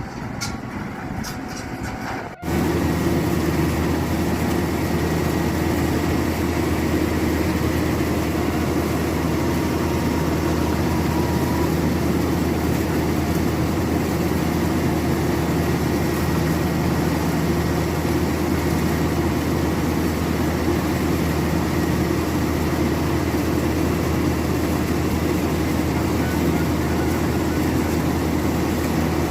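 Combine harvester running steadily, a loud, even machine drone with a deep hum, which starts abruptly about two seconds in and holds without change.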